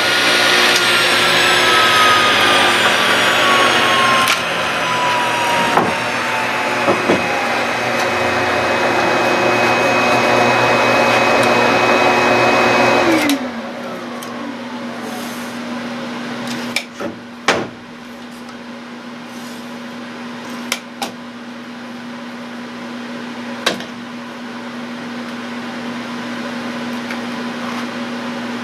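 Table saw running loudly while ripping a wooden table leg to size, its pitch shifting as the cut goes on; about thirteen seconds in it is switched off and winds down. A lower steady hum carries on afterwards, with a few sharp knocks of the wood being handled.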